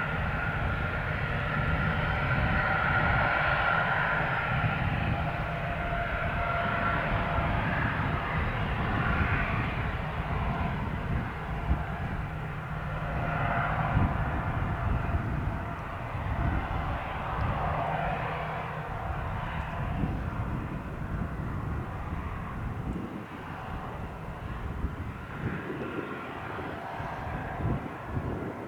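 Gulfstream G650 business jet's Rolls-Royce BR725 turbofan engines running: a steady jet whine over a low rumble, slowly fading.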